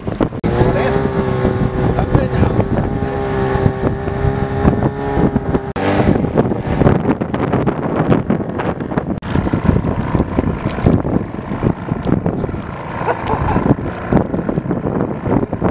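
Small outboard motor running as the boat moves along, with wind buffeting the microphone. A steady engine tone stands out for the first six seconds or so, then is mostly covered by wind noise.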